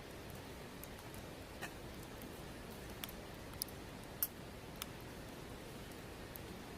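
Wood campfire burning with a steady soft hiss and a handful of sharp pops and crackles spaced irregularly, the loudest a little past the middle.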